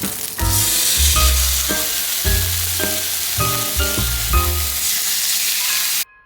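Background music with a loud, steady hiss like sizzling laid over it; the hiss cuts off suddenly near the end, leaving the music quieter.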